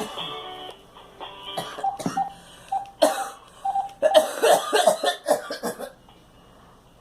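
A girl coughing in a fit of repeated coughs for about four seconds, the coughs coming in quick, uneven bursts. Music stops just before the coughing begins.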